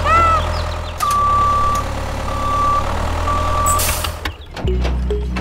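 Low vehicle engine rumble with a reversing alarm beeping three times, the beeps about half a second long and half a second apart. Near the end this gives way to background music.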